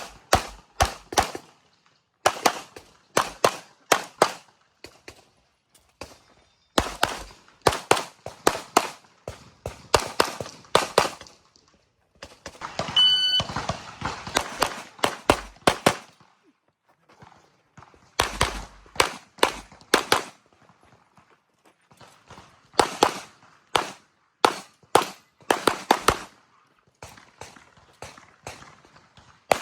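Handgun shots fired in fast strings of rapid double and multiple shots, with brief pauses between strings as the shooter moves between targets during an IPSC stage. A short electronic shot-timer beep sounds about 13 seconds in.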